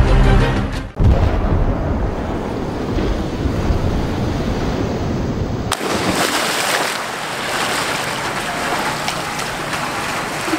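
A large splash as a person lands in a swimming pool, about six seconds in, followed by churning water. Before it there is a low rushing noise.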